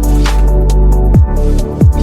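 Electronic background music with a heavy sustained bass and deep kick-drum hits whose pitch drops, about one every second and a half.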